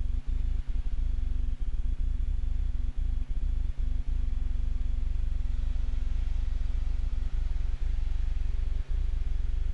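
Steady low drone of a piston aircraft engine heard from inside the cockpit, with brief dips in level.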